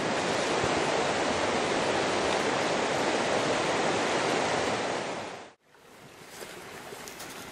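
Steady rushing noise with no distinct pattern, cut off abruptly about five and a half seconds in, leaving fainter background noise.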